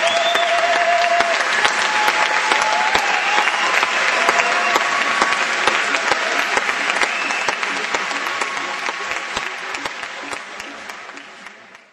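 Large crowd in a sports hall applauding, with a few shouts or whistles over the clapping; the sound fades out over the last couple of seconds.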